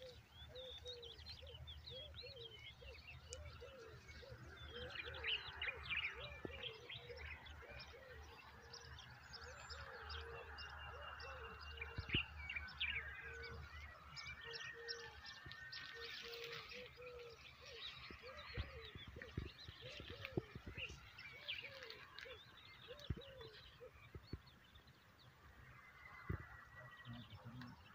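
Several birds chirping and calling: many short high chirps and trills, with a series of lower repeated notes through the first half, over a low steady rumble.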